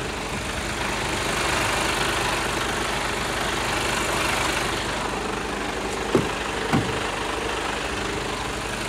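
Heavy truck's engine and road noise heard steadily from inside the cab while driving, with two short knocks a little after six seconds in and again about half a second later.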